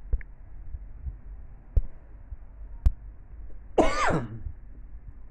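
A man clears his throat once, briefly, near the end, with a pitch that rises and then falls. Before it come three sharp clicks over a low background rumble.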